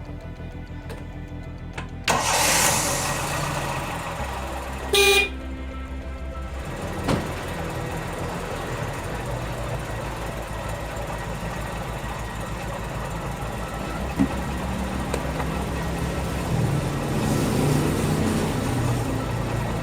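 A small four-cylinder car engine, the freshly top-overhauled Toyota 2E, starts about two seconds in and keeps running, with one short horn beep a few seconds later. Background music with a steady bass plays underneath.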